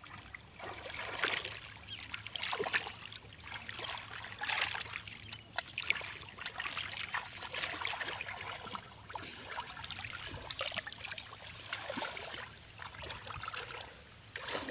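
Shallow muddy pool water splashing and trickling unevenly as hands grope through it for fish.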